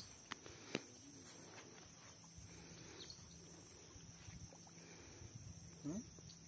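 Near silence: faint open-air ambience by a lake, with a couple of light clicks in the first second and a brief rising sound near the end.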